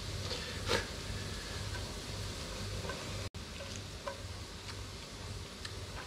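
Sauce sizzling faintly in a pan on the stove, over a steady low hum, with a few light clicks of a utensil against the pan.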